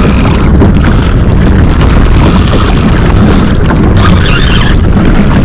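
Wind buffeting the microphone: a loud, steady low rumble with no pauses.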